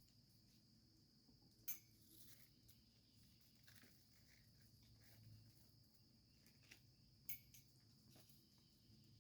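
Near silence: a faint, steady, high insect drone, with a few faint clicks.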